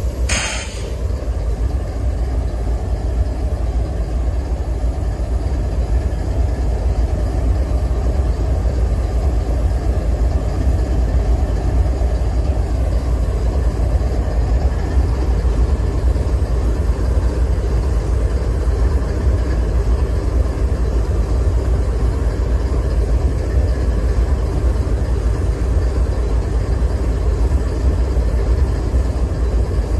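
GE diesel-electric locomotives idling: a steady, low engine rumble. A short burst of hiss sounds about half a second in.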